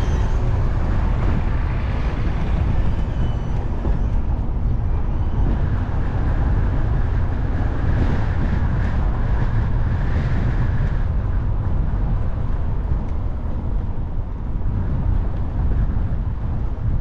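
Steady low rumble of a car being driven slowly: road and engine noise.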